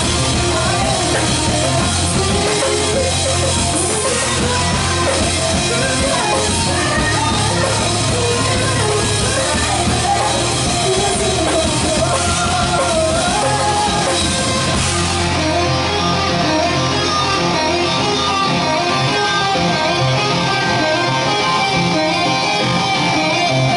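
Live heavy metal band playing: distorted electric guitars, bass guitar and drum kit, with a woman singing. About 15 seconds in the cymbals drop back and the guitars carry on.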